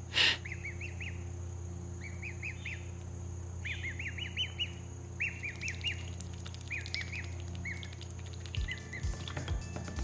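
Black swan cygnet peeping as it feeds: quick runs of three to six short, high chirps, roughly one run a second, over a steady low hum. A brief loud noise right at the start and a few low thuds near the end.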